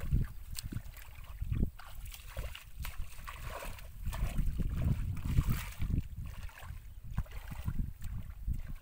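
Wind buffeting the microphone in uneven gusts, a low rumble, with light crackling rustles of grass stems brushing past as the camera moves along the path.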